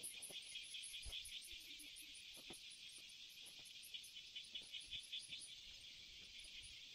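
Faint, steady chorus of insects trilling in a rapid pulse, with a few faint knocks now and then.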